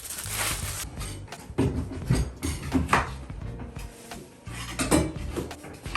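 Demolition work in a bathroom: hard pieces clattering and clinking, with several irregular sharp knocks.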